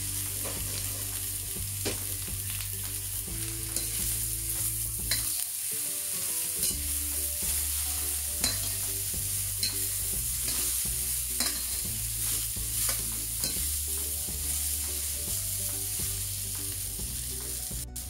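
Eggplant strips and vegetarian mince sizzling as they are stir-fried in a hot black steel wok. A metal spatula scrapes and clicks against the wok now and then.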